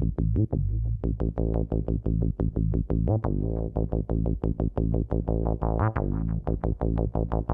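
Electronic music: synthesizer playing a fast run of short repeated notes over a steady bass.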